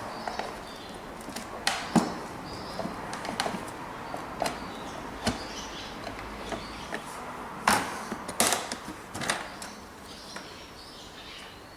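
Irregular knocks and clicks, the loudest about two seconds in and again around eight seconds in, over a low background hiss.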